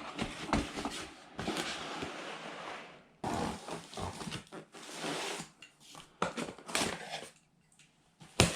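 Handling noise from unpacking: irregular rustling of boxes and packaging with scattered clicks and knocks, and one sharp click near the end.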